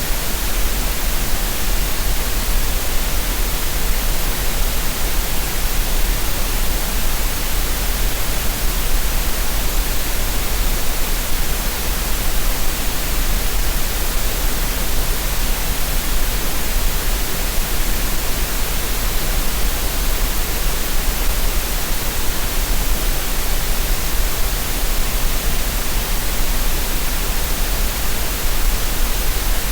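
Steady synthetic green noise, an even, unchanging hiss with a strong low rumble underneath, played as a relaxation and tinnitus-masking sound.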